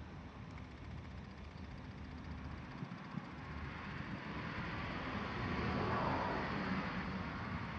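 A vehicle going past, its noise swelling to a peak about six seconds in and then fading.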